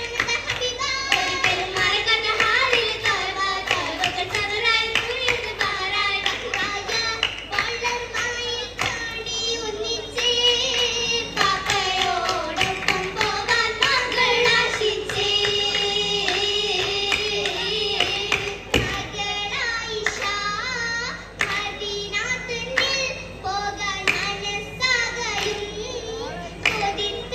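Oppana: a group of girls singing a Mappila song together, with rhythmic hand-clapping from the dancers.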